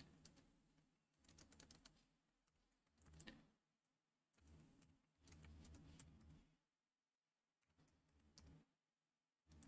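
Faint typing on a computer keyboard: several short runs of keystrokes with brief pauses between them.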